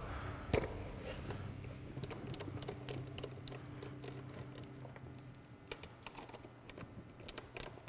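Small, faint clicks and ticks of a hand screwdriver backing out the screws that hold a mass airflow sensor in a plastic air-intake lid, over a low hum that fades out a little past halfway.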